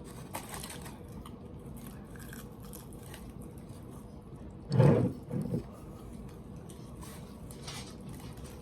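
Faint chewing and mouth sounds of someone eating, with a short two-part voiced 'mm-mm' about five seconds in.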